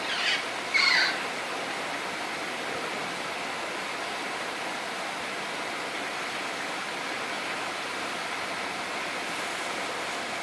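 Steady rushing outdoor background noise with no clear pattern. Near the start, two short bird calls, each falling in pitch, are the loudest sounds.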